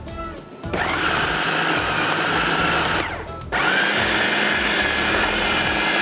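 Electric food processor chopping mutton mince with onion and bread crumbs: the motor starts just under a second in, winds down with a falling whine about three seconds in, then starts again and keeps running.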